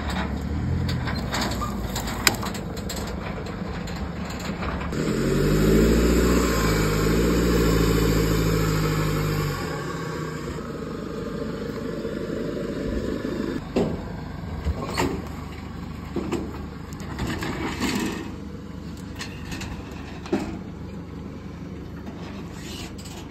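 Chevy Colorado's diesel engine running loudly for about five seconds near the middle, its pitch wavering, amid scattered sharp knocks and clicks.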